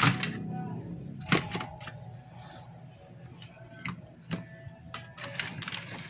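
A handful of sharp clicks and light knocks at irregular spacing, the loudest right at the start and about a second and a half in: hands working on an air conditioner's wiring, pulling the push-on connectors off its starting capacitor.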